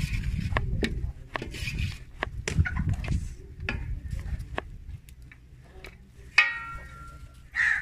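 Kitchen knife slicing a tomato on a plastic cutting board: a run of quick, uneven taps as the blade meets the board. About six seconds in, a brief high-pitched call sounds over the taps.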